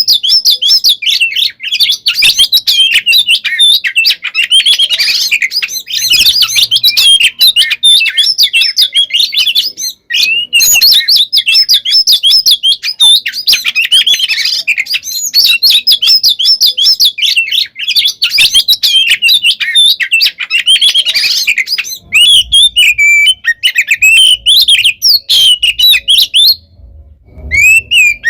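Oriental magpie-robin (kacer) singing a loud, fast, non-stop stream of varied chirps and whistles. This is the aggressive "fighting" song that keepers play to provoke other magpie-robins into answering. The song breaks off briefly a little before the end.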